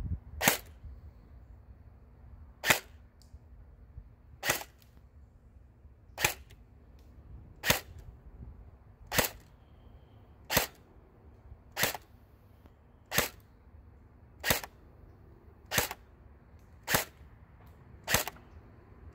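Cybergun Thompson M1928 battery-powered airsoft gun firing single 0.2 g BBs through a chronograph, about thirteen sharp shots at a slow, even pace of roughly one every second and a half. The chronograph reads them at about 340–347 fps.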